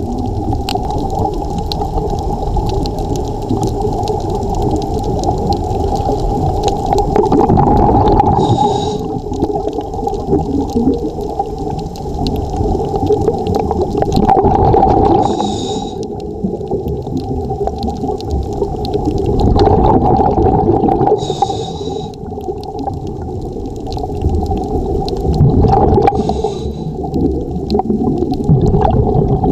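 Scuba regulator breathing heard underwater: a bubbling exhalation swells and fades about every six seconds, each breath ending in a short hiss, over a steady hum.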